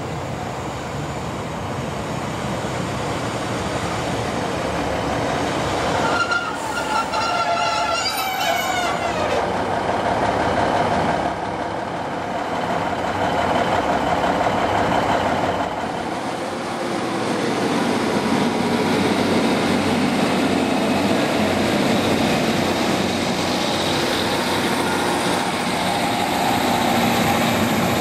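London Midland Class 150 Sprinter diesel multiple unit running through a station: steady diesel engine and wheel-on-rail noise, with a brief high squeal falling in pitch about six to nine seconds in.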